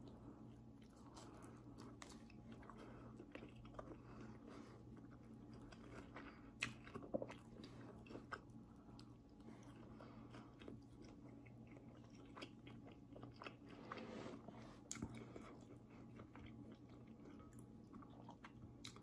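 Faint chewing of a chicken pot sticker, with scattered small mouth clicks over a steady low hum.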